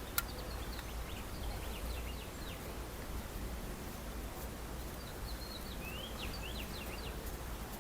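Small birds chirping in two brief bursts of quick, short notes, over a steady low background rumble.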